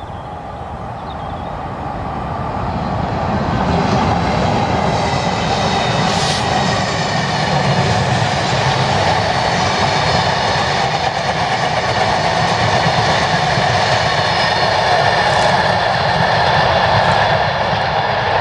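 Class 66 diesel locomotive passing at speed with a long train of hopper wagons. The sound builds over the first few seconds as the locomotive comes by, then holds as a steady run of wagon wheels on the rails.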